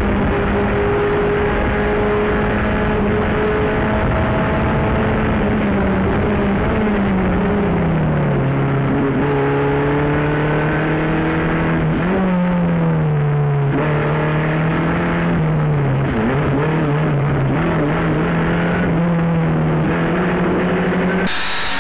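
Onboard sound of a Formula F race car's four-cylinder engine at racing speed, with wind and road noise. The engine note holds high at first, drops about seven seconds in, then rises and falls as the car brakes, shifts and accelerates through the corners. The sound cuts abruptly to a different shot just before the end.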